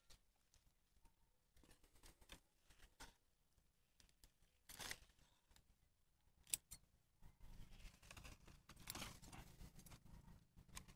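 Near silence with faint scattered rustles and clicks; two slightly louder brief rustles come about five and six and a half seconds in, and a faint low rumble sets in about seven seconds in.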